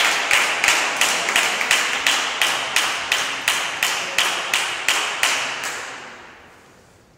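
Spectators clapping in unison in a steady rhythm, about three claps a second over a background of crowd noise, dying away near the end.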